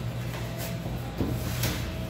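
Background music with a steady low tone, broken by two short hissing sounds about half a second and a second and a half in.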